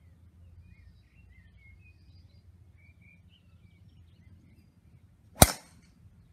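Callaway XR Speed driver striking a golf ball off the tee: a single sharp crack about five and a half seconds in that dies away quickly.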